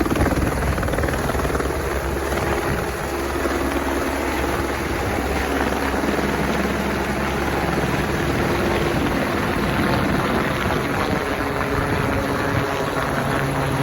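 Fire-department rescue helicopter running steadily, its turbine and rotor noise continuous.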